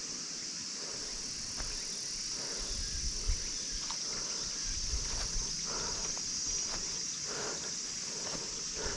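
Chorus of summer cicadas buzzing in a steady, high, unbroken drone.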